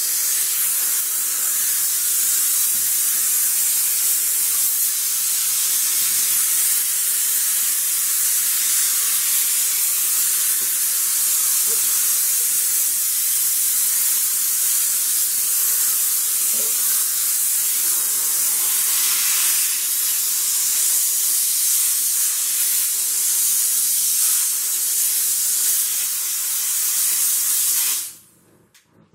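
Sauber Brilliance steam cleaner jetting steam in a steady, loud hiss that cuts off suddenly near the end.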